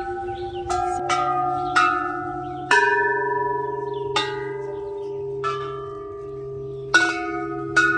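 A row of hanging brass temple bells rung one after another, about eight strikes in all. Each bell rings on in long, steady tones that overlap with the next, each at a different pitch.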